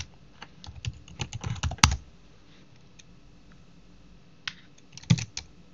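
Typing on a computer keyboard: a quick run of key clicks ending in a louder keystroke a little under two seconds in, then a pause and a few more clicks near the end.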